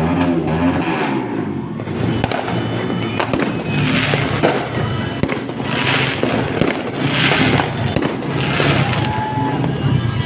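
Fireworks going off: sharp bangs and a series of hissing, crackling bursts every second or two, over music.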